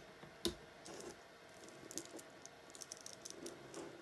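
A single knock about half a second in, then a run of light clicks and rustles as fingers handle and press small pieces of fabric and backing paper onto a paper pattern.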